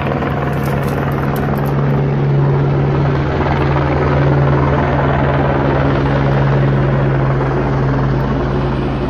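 Helicopter running overhead: a loud, steady drone with a fast, even rotor beat.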